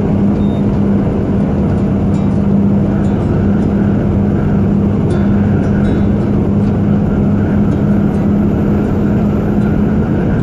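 Truck engine and road noise heard from inside the cab while cruising at steady highway speed: a continuous drone with a steady low hum.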